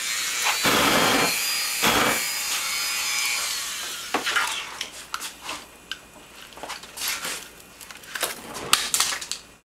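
Dremel rotary tool spinning at high speed over a hissing torch flame, driving a homemade soda-can jet engine turbine; the whine slowly drops in pitch and fades after about four seconds, after the drive band has snapped. Scattered pops and crackles follow as flames flare from the turbine housing.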